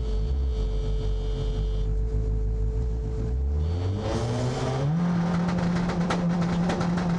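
Skoda Octavia WRC's turbocharged four-cylinder engine, heard from inside the cabin, idling on the start line, then revved up about four seconds in and held at high revs. Sharp cracks sound over it near the end.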